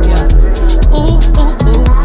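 Background music with a bass-heavy beat, about two low thumps a second under a melodic line.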